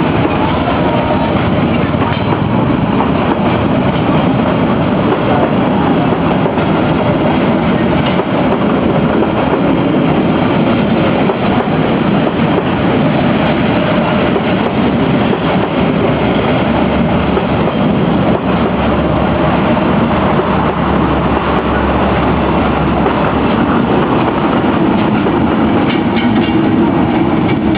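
Train passing through a level crossing: a loud, continuous rumble of wheels on the rails.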